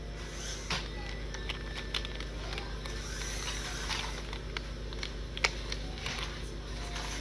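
Small RC truck's electric motor and drivetrain running with a steady hum and scattered sharp clicks and ticks, one louder click about five and a half seconds in, as the truck drives into a pile of clothing on carpet that ends up wrapped around its unguarded drive shaft.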